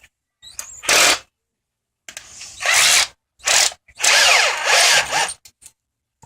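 Small power drill, used as a screwdriver on an RC car, run in four short bursts with pauses between, the last one the longest.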